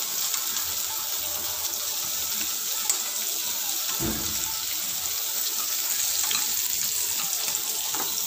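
Sliced bitter melon and onion sizzling steadily in a hot wok as they are stir-fried, with faint clicks of wooden chopsticks against the pan and one dull thump about four seconds in.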